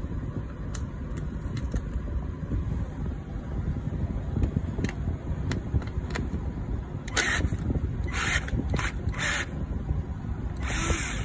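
Wrench and Allen key working a nut off a frame bolt: a few faint clicks, then a run of short metallic scrapes in the second half and one longer scrape near the end, over a steady low rumble.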